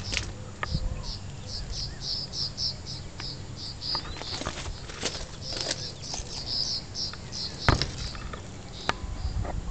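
High chirping repeated about four times a second, with a few sharp crunching steps on gravel track ballast near the end and a low rumble of handling noise.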